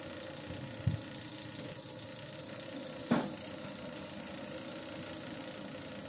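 Cricket bowling machine running with a steady hum, and one sharp crack of a cricket ball about halfway through.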